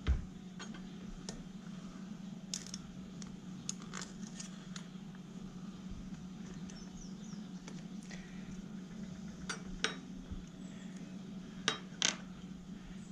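Scattered light metallic clicks and clinks as a Honda Magna 750 carburetor bank and small hand tools are handled on a wooden workbench, with a pair of sharper clicks near the end, over a steady low hum.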